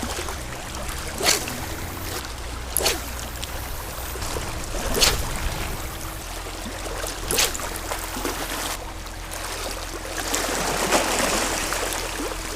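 Water washing against the shore as a steady rushing hiss, with four short sharp sounds spaced one to two and a half seconds apart. A faint steady hum runs underneath, and the water noise swells near the end.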